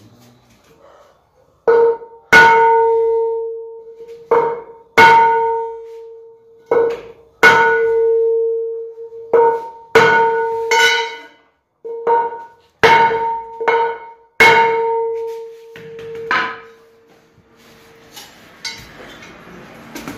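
Aluminium alloy car wheel being hammered to straighten a dented rim after heating: about fifteen sharp metal blows, often in pairs and roughly a second apart. Each blow leaves the rim ringing with a clear bell-like tone, and the blows turn fainter near the end.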